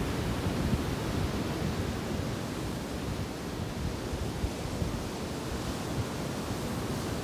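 Sea waves washing onto a beach in a steady surf, with wind rumbling on the microphone.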